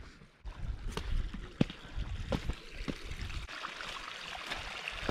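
Footsteps on a rocky gravel trail, a step about every two-thirds of a second, with wind rumbling on the microphone; from about three and a half seconds in, the steady rushing hiss of a mountain stream.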